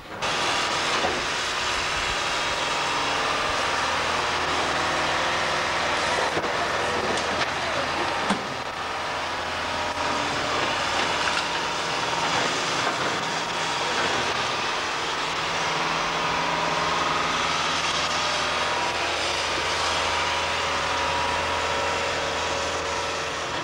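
Diesel engine of a tracked excavator running loudly and steadily, with a few scattered knocks.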